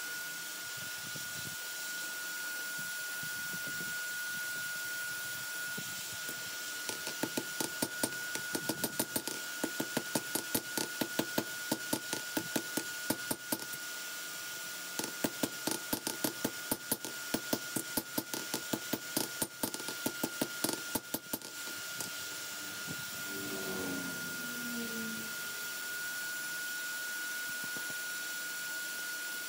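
Hand hammer striking hot steel from a lawnmower blade on an anvil as a bowie knife is forged, about three blows a second, in two runs with a short pause between. A steady hiss with a constant high whine runs underneath.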